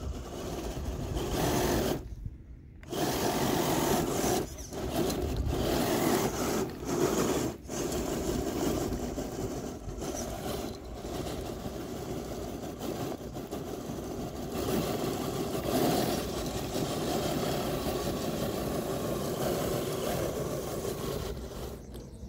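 RC rock crawler's electric motor and geartrain whirring under throttle, with the tyres spinning and scrabbling on loose dirt. The sound comes in bursts with short pauses in the first several seconds, then runs on steadily.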